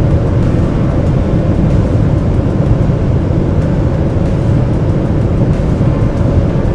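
Cabin noise of a 2018 Ford Edge's 2.0 TDCi four-cylinder diesel pulling at about 180 km/h: a steady engine drone under heavy wind and tyre roar.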